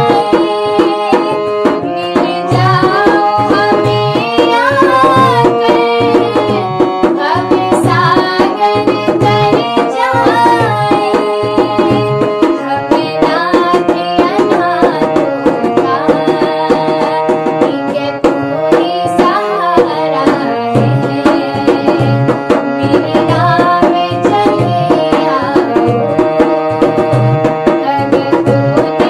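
Devotional Hindi bhajan music: a steady tabla rhythm under a melodic line that moves and bends in pitch.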